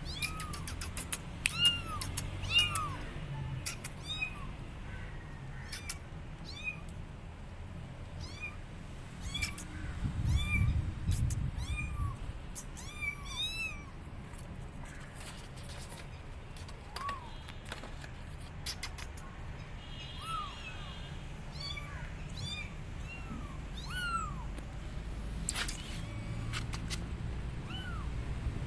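Young kittens meowing over and over in short, high calls, thickest in the first half and more spaced out later. A low rumble about ten seconds in.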